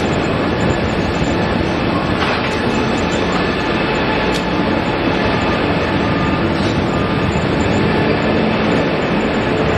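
Rolls-Royce Trent 900 jet engines of an Airbus A380 on the runway roll: a loud, steady rush of engine noise with a faint whine in it.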